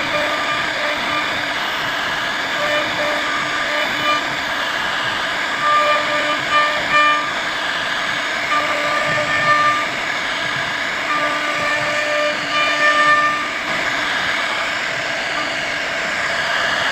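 CNC router carving wood: a steady cutting and spindle noise, with short pitched whines that come and go as the machine moves.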